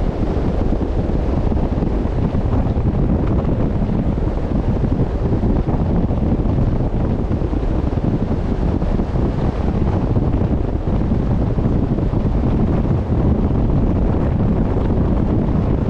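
Wind buffeting the microphone at sea, a steady low rumble over the wash of the water.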